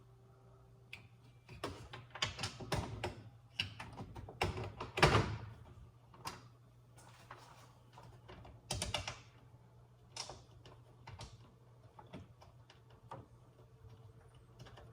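Handling noise as a replacement microwave door handle is fitted: irregular knocks, clicks and rattles, the loudest about five seconds in, with a faint steady low hum underneath.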